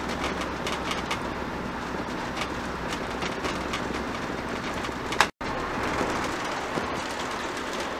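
Motorhome on the move, heard inside the cab: steady engine and road noise. The sound cuts out for a split second about five seconds in.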